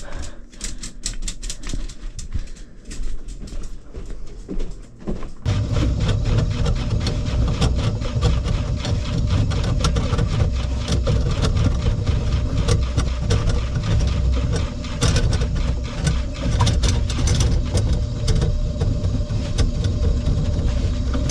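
Clicks and rattles of a drain cable, then about five seconds in a power drain snake's motor starts and runs steadily, spinning the cable into a clogged kitchen sink drain.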